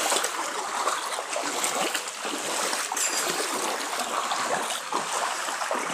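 Feet wading and splashing through shallow floodwater, over a steady hiss of moving water.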